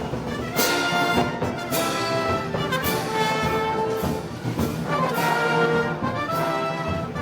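Brass band playing sustained chords, with a cymbal and drum stroke about once a second marking a slow, heavy beat: Moros y Cristianos festival band music.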